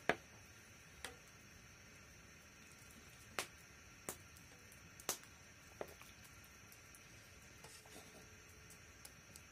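Sparse light clicks and knocks of a metal ladle and a wooden spatula against cooking pots and dried leaf plates as food is dished out. There are about six sharp ticks in the first six seconds, the loudest right at the start, and a few fainter ones near the end, over a faint steady high hum.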